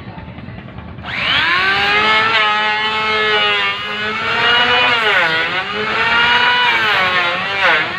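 Electric hand planer switched on about a second in, its motor whining quickly up to speed, then cutting along a wooden plank, the pitch sagging and recovering several times as the blade bites under load.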